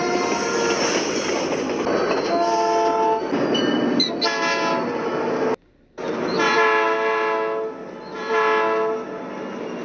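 BC Rail SD40-2 diesel locomotive's chord horn sounding a series of long and short blasts over the rumble of the train. The sound cuts off abruptly to silence about five and a half seconds in, then the horn resumes.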